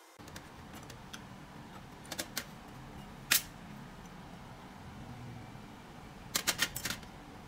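Metal carburetor parts clicking and clinking against each other and a stainless steel tray as a motorcycle carburetor is taken apart: a couple of light clicks, one sharper clink about three seconds in, and a quick run of clicks near the end.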